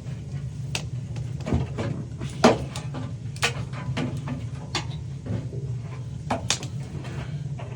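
Scattered clicks and knocks of tools and metal parts being handled during a gas water heater repair, the loudest about two and a half seconds in, over a steady low hum.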